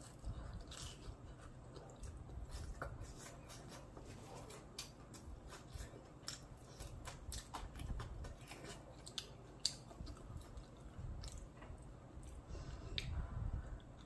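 Someone chewing crunchy food up close, with irregular crisp crackles and crunches throughout.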